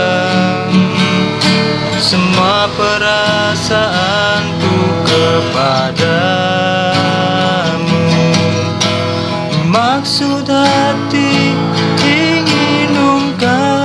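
Background music: a guitar-backed instrumental passage of a song, with a gliding melody line and no words.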